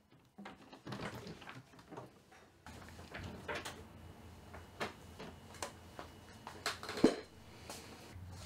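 Scattered light knocks and clicks of household things being handled, with one sharper knock about seven seconds in, over a faint steady room hum.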